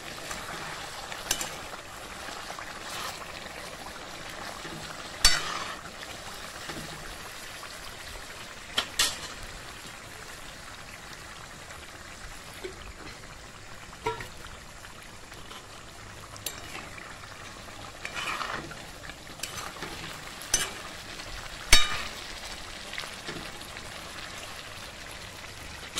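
Mutton curry sizzling steadily in a black iron kadai, with a spoon scraping and clacking against the pan now and then as it is stirred. Water is poured into the pan near the middle to make the gravy.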